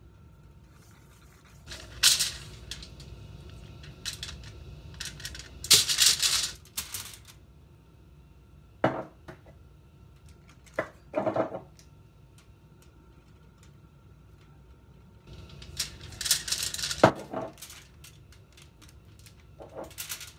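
Aluminium foil crinkling and a spice shaker rattling as a whole raw fish lying on the foil is seasoned and rubbed by hand. The sounds come in short bouts a few seconds apart, with one sharp tap about two-thirds of the way through.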